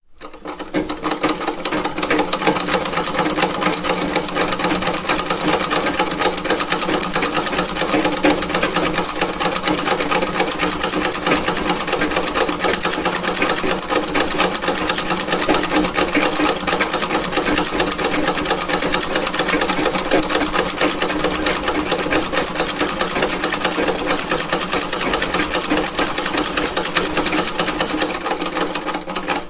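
Vintage sewing machine running at a fast, even stitching rhythm, a rapid steady clatter of needle and mechanism. It winds up to speed over the first couple of seconds.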